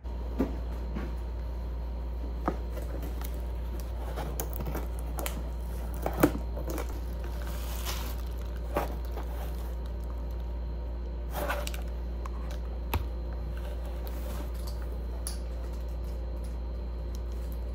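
A cardboard shipping box and its packaging being handled and opened: scattered clicks, knocks and rustles, with a longer rustle about eight seconds in, over a steady low hum.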